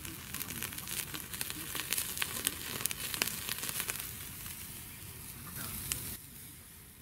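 Pork neck sizzling on a grill over a campfire, with frequent sharp pops and crackles. It drops noticeably quieter about six seconds in.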